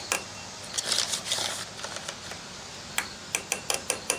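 Light clicks and taps of a spoon against cookware while cornstarch is spooned in. There is a scraping cluster about a second in, then a run of separate sharp taps near the end.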